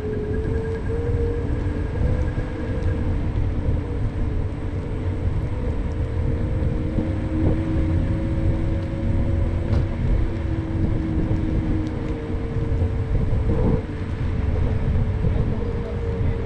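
Riding noise of a small electric personal vehicle: wind buffeting the microphone and tyre rumble, with a steady electric motor whine that drifts slightly up and down in pitch as speed changes.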